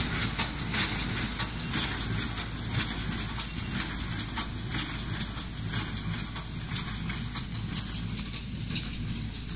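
Fortschritt K-454 pick-up baler working, with a steady rhythmic clatter from its mechanism over the steady running of the towing tractor's engine, getting a little fainter near the end.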